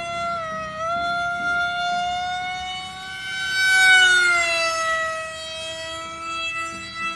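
Radio-controlled model jet flying overhead with a steady high whine that rises slightly in pitch and grows loudest as it passes about four seconds in, then drops in pitch.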